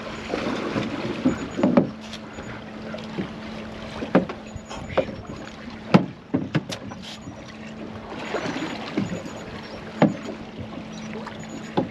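Small fishing boat on choppy sea: wind and water sloshing against the hull over a steady low hum. A few sharp clicks and knocks come from a small rockfish and its fishing rig being handled on deck.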